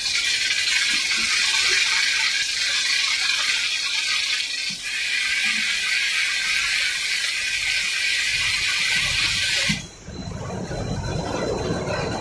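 Spray nozzles inside an octagonal seasoning drum hissing steadily as they spray onto tumbling fried twist snacks. The spray cuts off sharply near the end, leaving the lower rumble of the turning drum and the snacks tumbling in it.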